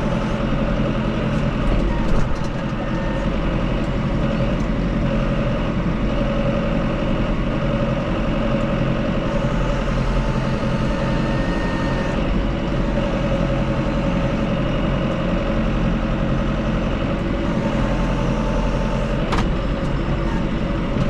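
Truck engine running steadily, with a short click near the end.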